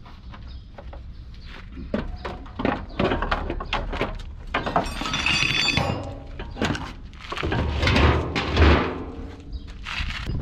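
Irregular knocks, thunks and scraping of a plastic bumper corner section with headlamp being pushed and worked into place against the front frame of a Mercedes-Benz Actros truck, heaviest about eight seconds in.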